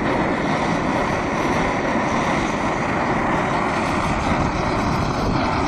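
MSR liquid-fuel camp stove burner running at full after priming, its valve opened half a turn: a steady hiss of burning fuel and air with a faint hum underneath.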